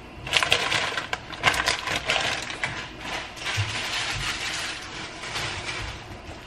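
Plastic ramen packaging crinkling and rustling as it is handled, a dense run of crackles that thins out near the end.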